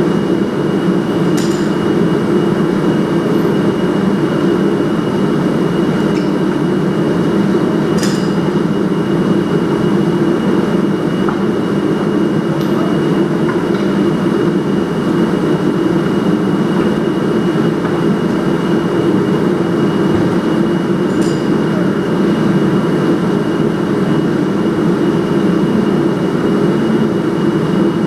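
Forced-air shop heater running: a steady low rumble with a faint high whine on top, and a few light clicks.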